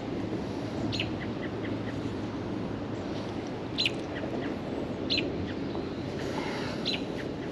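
Bird chirps: short, sharp notes that sweep quickly downward, four of them a second or two apart, over a steady background noise.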